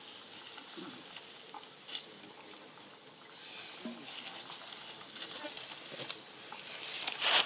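Dry leaf litter rustling and crackling softly with scattered light ticks, as macaques shift on the ground, with one louder, brief rustle near the end.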